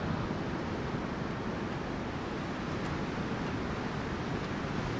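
Steady rushing noise of ocean surf, with wind on the microphone.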